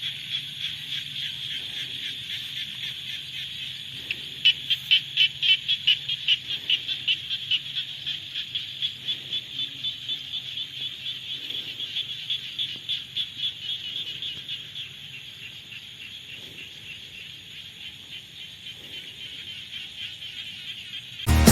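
A chorus of frogs calling, a dense high trilling pulse. About four seconds in, a louder caller joins with a regular series of calls, about two a second, which fades away by about fifteen seconds.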